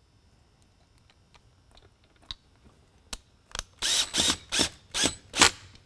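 Cordless screwdriver tightening the screws that hold a beacon's polycarbonate dome to its base. The clutch ratchets in about five short, loud bursts in the second half as each screw seats, after a few faint clicks of the screws being handled.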